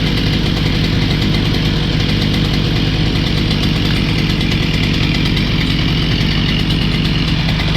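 A motor engine running steadily at constant speed, with a low, even hum and no revving.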